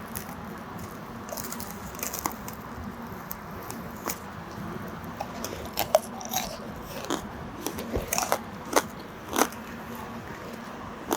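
Biting into and chewing a frozen strawberry tanghulu, its thick hardened sugar shell cracking in sharp crunches. There are a few crunches at first, and louder, more frequent ones from about halfway through.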